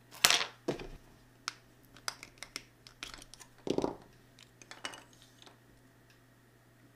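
Plastic casing of a PNY USB flash drive being pried open and pulled off its circuit board: a run of sharp clicks and short crackles, the loudest about a third of a second in and again near four seconds in.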